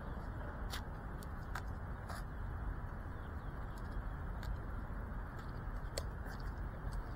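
Steady, low outdoor background noise with a few faint scattered clicks; no motor or propeller sound.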